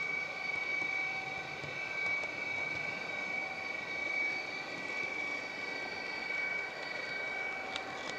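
H0 model train running along the track: a steady high-pitched motor whine over rolling wheel noise, with a few sharp clicks near the end.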